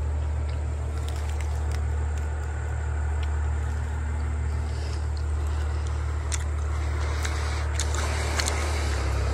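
A motor running steadily with a low, even hum, with a few faint ticks over it.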